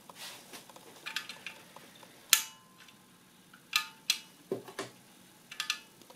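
Scattered sharp clicks and clinks from small hard objects knocking, several ringing briefly. The loudest comes a little over two seconds in, and there is a duller thud about four and a half seconds in.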